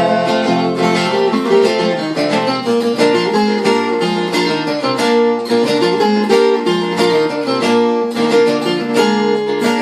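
Viola caipira (Brazilian ten-string folk guitar) and guitar playing an instrumental break: a fast plucked riff over strummed chords, with no singing.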